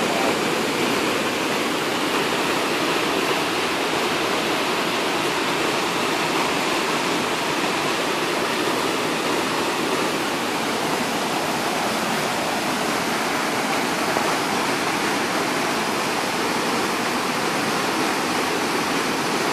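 Creek in flood: fast, muddy floodwater rushing and churning in a steady, unbroken torrent.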